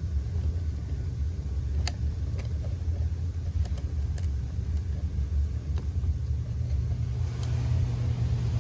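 Travel trailer's furnace running with a steady low rumble that grows a little louder near the end, with a few light clicks and rattles from cables being handled.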